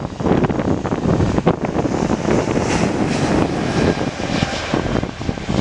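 Jet airliner engines running as the aircraft taxis: a steady low rumble with a hissing whine that swells around the middle.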